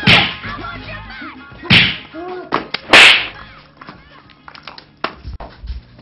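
Three loud punch-and-whoosh fight sound effects about a second and a half apart, with a lighter smack about five seconds in, over background music.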